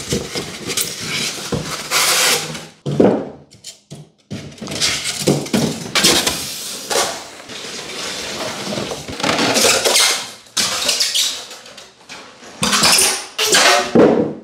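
Electric scooter being hauled out of its shipping box: irregular scraping, rustling and knocking of cardboard and foam packing, in uneven bursts with short pauses.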